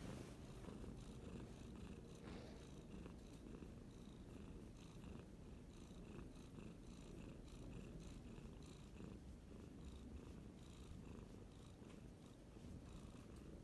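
Domestic cat purring, a faint steady low rumble close to the microphone while she rests on a lap and is stroked on the cheek.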